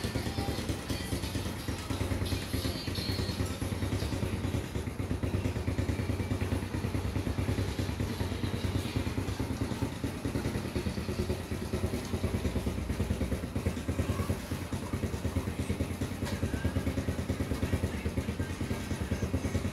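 A small engine running steadily, with a fast, even putter.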